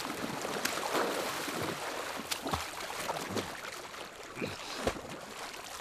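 Water splashing and sloshing as a person wades through shallow lake water, dragging another person along, with scattered sharper splashes.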